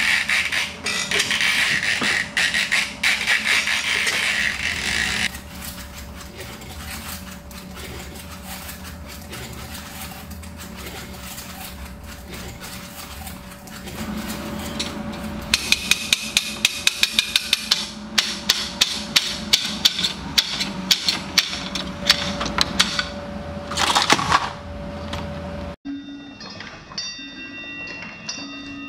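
Student-built wooden hand-cranked sound machines, one after another: a loud rasping noise for about five seconds, then a quieter stretch of scattered clicks, then rapid regular tapping at about three strokes a second with a loud burst near the end. In the last few seconds a machine striking brass singing bowls rings with several steady tones.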